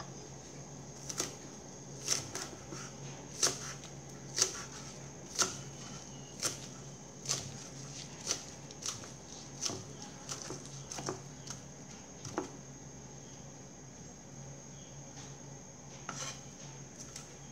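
Large kitchen knife chopping leafy green herbs on a round wooden chopping board: sharp knocks of the blade on the wood, about one a second, stopping about twelve seconds in, then a couple more knocks near the end.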